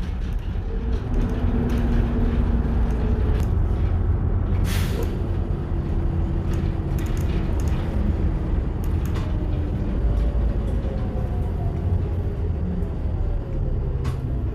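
Empty bus running, heard from inside the cabin: steady low engine and road rumble with scattered rattles and clicks from loose fittings, and a short hiss about five seconds in.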